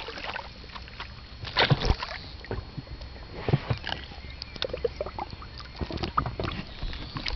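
Water splashing and sloshing with irregular knocks and bumps as a wels catfish is hand-landed, gripped by the jaw at the surface. One louder splash comes a little under two seconds in.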